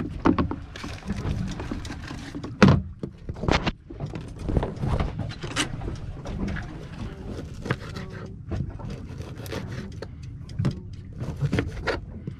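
A bait-cutting board being fitted onto its mount on a boat, a run of knocks and clatters with two louder thumps about three seconds in, then a knife cutting bait on the board near the end.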